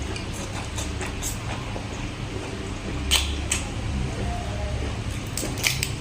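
Close-miked eating sounds: a person chewing, with sharp mouth clicks and crunches, a pair about three seconds in and a quick cluster near the end, over a steady low hum.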